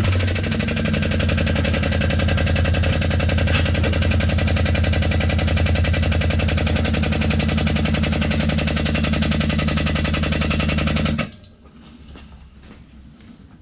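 A loud machine running steadily with a rapid, even pulse at a constant pitch, cutting off abruptly about eleven seconds in.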